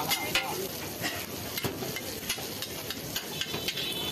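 Metal spatula knocking and scraping on a large flat iron griddle, sharp irregular clacks over the sizzle of frying chicken.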